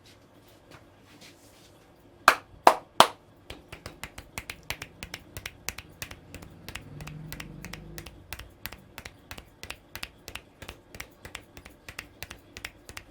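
Hands striking the head during an Indian head massage: three loud sharp hand strikes a little over two seconds in, then a steady run of quicker, lighter clicking taps, about four or five a second.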